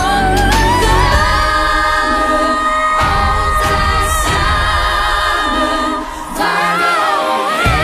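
Children's pop music: a young singer holds long, sustained notes over a backing track. The bass drops out about two seconds in and comes back near the end.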